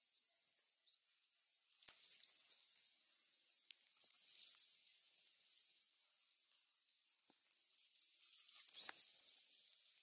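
Red-whiskered bulbul nestlings giving many thin, high-pitched begging squeaks while a parent feeds them, with a couple of soft rustles, the loudest about nine seconds in.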